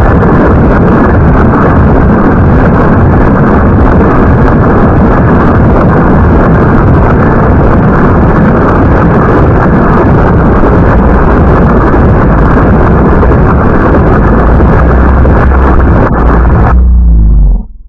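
Heavy wind buffeting the microphone, an overloaded, continuous rumbling roar that cuts off abruptly near the end.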